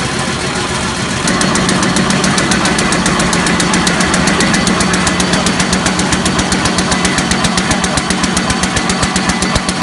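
Paper bag making machine running, a steady mechanical hum with rapid, evenly spaced clicking of its moving parts that starts about a second in.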